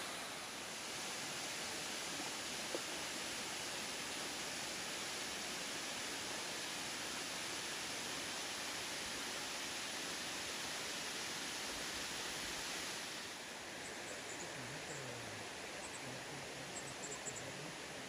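Steady rushing hiss of a waterfall cascading down a rock face, which turns quieter and duller about thirteen seconds in to the flow of a rocky rainforest creek.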